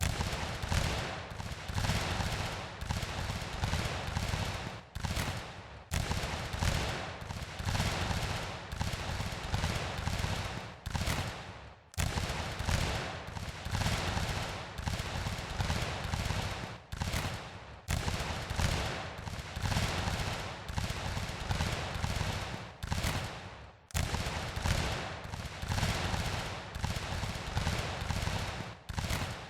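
A long volley of black-powder muskets: many shots fired raggedly and overlapping in a continuous crackle of gunfire. The firing thins briefly and then starts again sharply about every six seconds.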